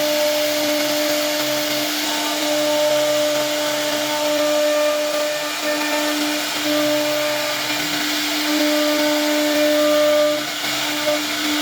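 CNC router spindle running at a steady high whine while cutting wood, over a continuous rushing hiss.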